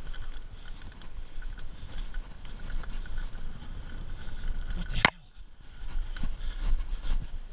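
Mountain bike riding fast down a steep dirt trail: wind buffeting the microphone with tyres on dirt and the bike rattling over the ground. A sharp knock about five seconds in, after which it goes briefly quieter.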